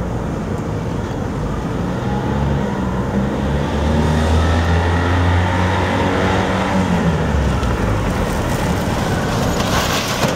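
Small gasoline engine of a Sanfu mini pickup running as the truck is driven about. Its pitch rises for the first few seconds and it grows louder as the truck draws near, holding steady before easing off about three-quarters of the way through.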